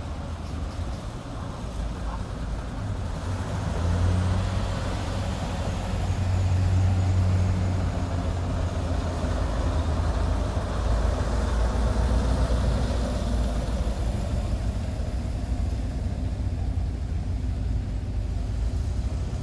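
WWII German half-track driving through deep mud, its engine a steady low drone. It grows louder about four seconds in as the vehicle passes, then eases off.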